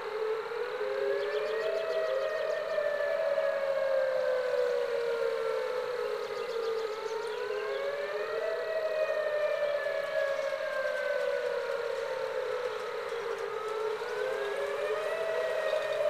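Outdoor tornado warning siren wailing: its pitch rises quickly, then falls slowly, in a cycle repeating about every six to seven seconds. It signals a tornado warning.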